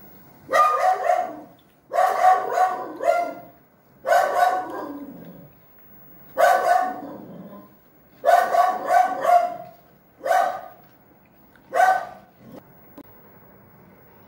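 A dog barking repeatedly and loudly, in short runs of one to four quick barks about every one to two seconds.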